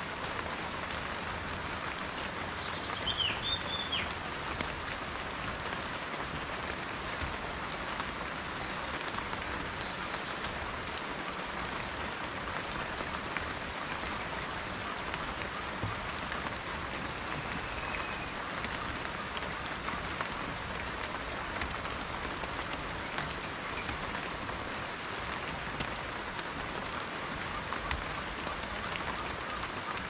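Steady tropical rain pattering on dense forest leaves, a constant hiss of many small drops. A short bird call sounds about three seconds in.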